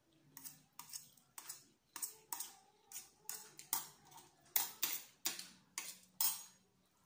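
Metal fork and spoon clinking and scraping against a ceramic plate, a quick run of sharp clinks about two a second, some with a short ring.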